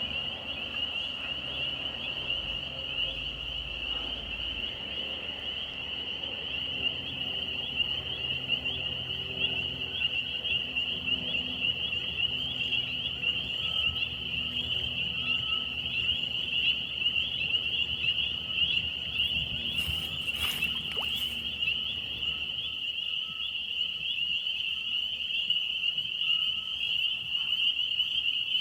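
Chorus of frogs calling together: a loud, unbroken, rapidly pulsing high-pitched trill that sounds like a car alarm. A brief rustle or clatter comes about two-thirds of the way through.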